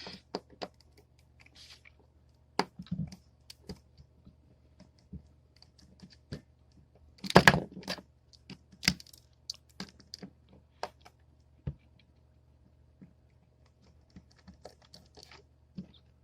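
Irregular small clicks and taps of a cell phone's plastic and metal parts being handled while it is taken apart, with a louder run of clicks about seven seconds in.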